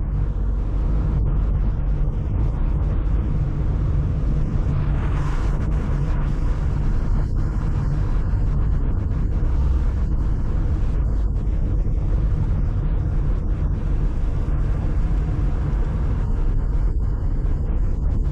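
Steady low rumble of a car being driven: road and wind noise, with a brief louder hiss about five seconds in.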